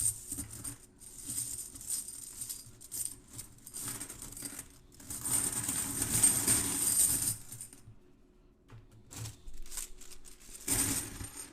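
Silver Franklin half dollars clinking against each other as they are handled and poured onto a pile of coins. The clinking is scattered at first, then becomes a dense, louder cascade for a couple of seconds around the middle, with a short burst again near the end.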